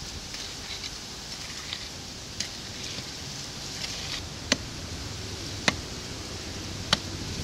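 A pick digging into a hard red clay bank: soft scraping and small knocks of the blade in loose soil, then three sharp blows into the earth wall about a second apart in the second half.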